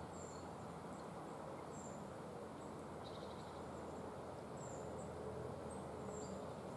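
Faint countryside ambience: a steady low hiss of open air, with short, very high bird chirps now and then.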